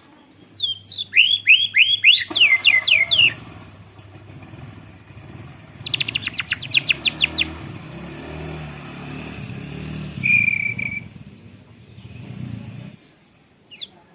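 White-rumped shama singing canary-style: a run of loud downward-sweeping notes, then a fast rolling trill, then a single short whistle. An engine rumbles low in the background.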